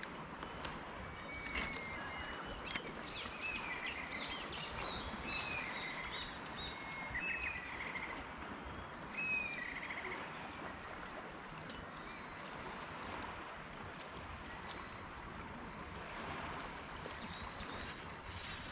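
Birds calling: a quick run of high, repeated chirps between about three and seven seconds in, with a few lower whistled notes, over a steady outdoor background hiss.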